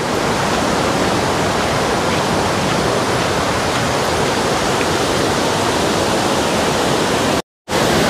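Waterfall and fast-flowing stream running high after rain: a loud, steady rush of water, broken by a brief total silence near the end.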